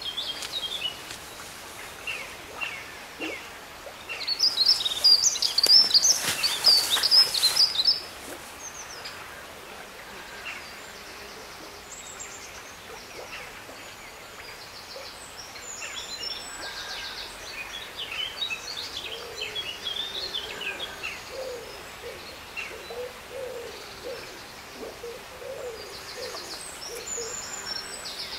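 Wild birds singing, with a loud burst of high chirping song about four seconds in that lasts some four seconds, scattered chirps after it, and lower repeated calls through the second half.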